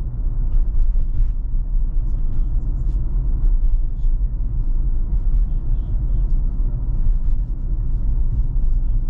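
Steady low rumble of tyre and road noise inside the cabin of a Tesla electric car cruising at about 30 mph.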